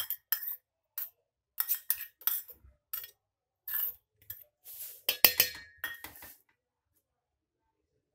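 A metal spoon scraping and knocking against a small steel bowl as chopped leaves are scraped out, a run of irregular clinks and short scrapes. A quick flurry of louder clinks comes about five seconds in, and the sound stops about a second later.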